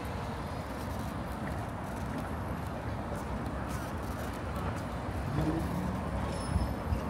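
City street traffic: a steady hum of passing vehicles, with a faint rising tone about five seconds in.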